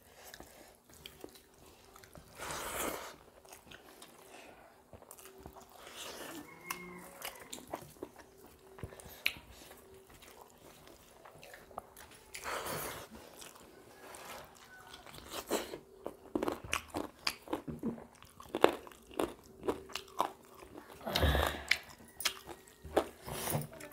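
Two people eating rice and chicken-spinach curry by hand: irregular chewing and lip-smacking, with soft squelches as fingers mix the food on steel plates.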